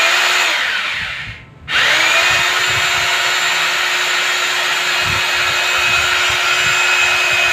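Corded electric drill boring into a wall overhead. Its motor spins down and stops about a second and a half in, then speeds back up with a rising whine and runs steadily.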